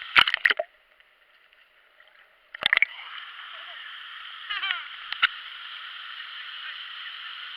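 Waterfall: a steady rush of falling water. It is broken by sharp knocks near the start, at about a third of the way in and again past halfway. The water sound cuts out for about two seconds near the start, then resumes.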